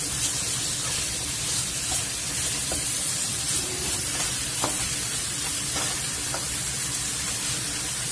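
Talakitok (trevally) steaks frying in oil in a stainless steel pan with sautéed garlic, onion, tomato and miso: a steady sizzle, with a spatula tapping and scraping the pan now and then.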